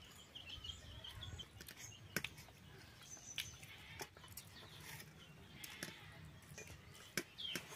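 Faint outdoor ambience of small birds chirping in short calls, with one falling call near the end. A few sharp clicks and taps are scattered through, over a low steady background rumble.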